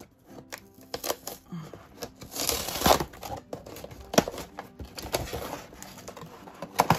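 Small blue pen-style cutter slicing packing tape on a cardboard box, with scraping, tearing and rustling of the cardboard. The longest tearing noise comes about two and a half seconds in, and there are a few sharp clicks, one near the end.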